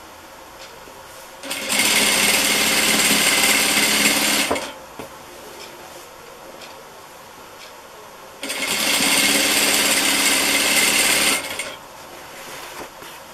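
Sewing machine stitching a bias binding onto a cloth in two steady runs of about three seconds each. Quieter handling of the fabric comes between and after the runs.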